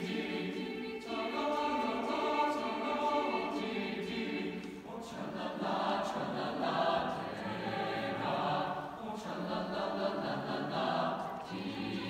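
Mixed choir of men's and women's voices singing in several parts, its phrases shifting every few seconds.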